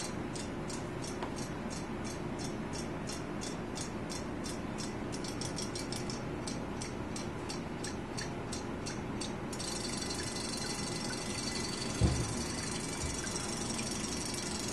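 Battery-powered robotic toy clownfish swimming in a glass bowl of water, its tail mechanism ticking evenly about three or four times a second. The ticking gives way to a steadier hiss after about nine seconds, and there is one dull thump near the end.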